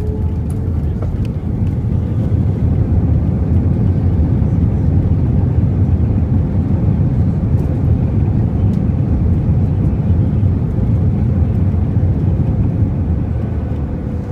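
Loud low roar of an Airbus A320's engines and rushing air heard inside the cabin during the landing rollout. It swells about two seconds in, then eases off near the end as the jet slows on the runway, with a faint thin engine whine in the background.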